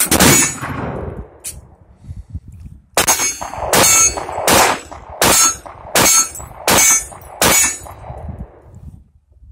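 A Ferguson breech-loading flintlock rifle fires one black-powder shot at the start, its report echoing away over about a second and a half. Then a 1911 pistol fires seven shots in steady succession, about one every three-quarters of a second.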